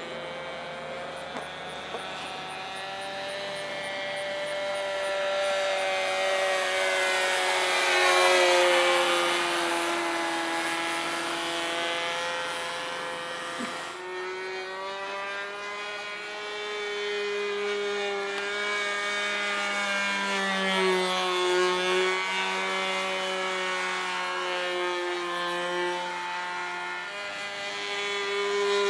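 O.S. 30 two-stroke glow engine of a radio-control model airplane buzzing in flight. It is loudest about eight seconds in, and its pitch slides down as the plane passes, then wavers up and down with the throttle and the plane's passes.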